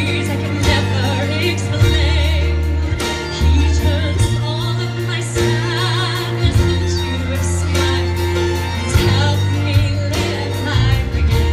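Woman singing a ballad with vibrato into a microphone, with a live orchestra playing long-held low bass notes beneath her, heard through an outdoor PA.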